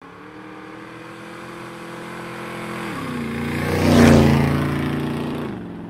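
Motorcycle engine passing by as an intro sound effect. It grows louder to a peak with a rush of air about four seconds in, then fades, and its pitch drops in two steps along the way.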